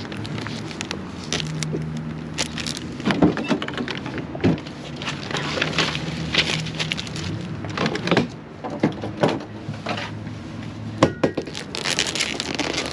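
Irregular knocks, clatters and crackles, as of materials being handled and moved, over a low steady hum.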